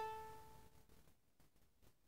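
Red soprano-style ukulele's strings struck once by hand, the note ringing out and fading away within about a second.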